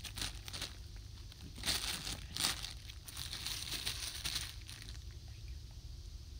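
Clear plastic bag crinkling in bursts as the squishy toy inside it is handled. The crinkling stops about two-thirds of the way through.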